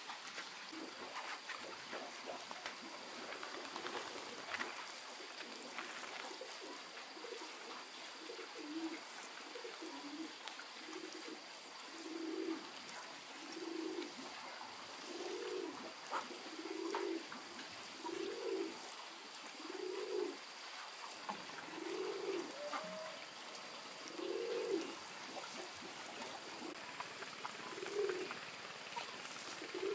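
A dove cooing: a long run of single low coos, each about half a second, repeated every one and a half to two seconds. The calls begin faint about a quarter of the way in and grow louder.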